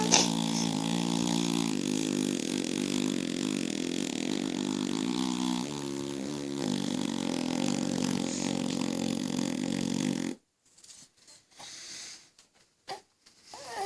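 A long, low buzzing imitation fart noise with a few small wobbles in pitch, held for about ten seconds and then cutting off suddenly.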